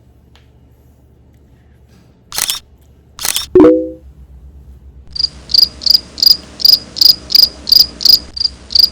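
Edited intro sound effects: two quick whooshes, then a loud pitched hit, followed by a steady train of high chirps at about three a second.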